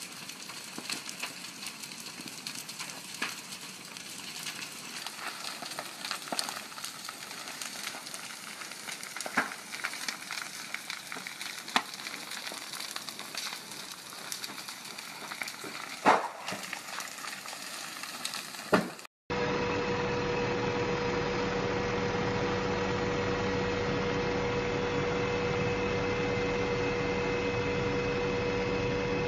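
Crackling and scattered sharp pops from a house burning as lava flows into it, with the loudest pops about two-thirds of the way through. Then the sound cuts off and gives way to a steady hum with one constant tone.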